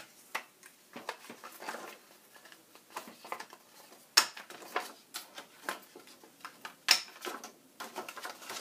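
Handheld paper corner punch snapping shut twice, about four seconds in and again near seven seconds, as it cuts the corners of a folded paper envelope, with paper rustling and handling in between.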